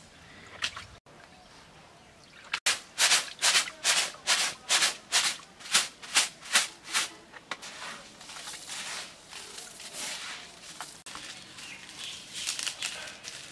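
Freshly washed rice shaken in a plastic colander to drain it, swishing in a steady rhythm of about three shakes a second for several seconds, then softer, uneven rustling.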